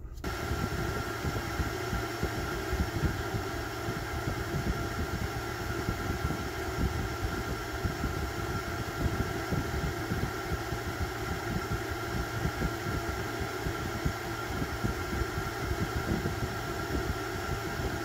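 A 270 CFM 12-volt marine air blower running steadily, driving air through an ice chest of ice and out of its duct. A steady motor whine sits over rushing air, and the airflow from the outlet buffets the microphone with an uneven low rumble.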